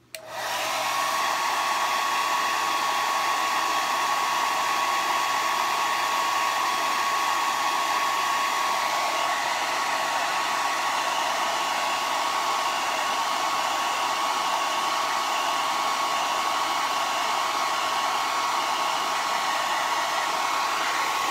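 Handheld hair dryer switching on and blowing steadily, a constant whine riding over the rush of air, then cutting off near the end.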